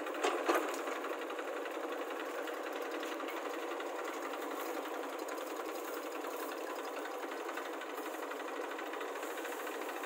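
Diesel engine running steadily with a fast, even clatter, with a brief louder knock about half a second in.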